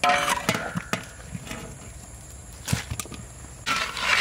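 A wire-mesh skimmer knocking and scraping in a metal pot of boiled corn and seafood as the food is scooped out. There is a loud clank with a brief ring at the start, scattered knocks after it, and a scrape near the end.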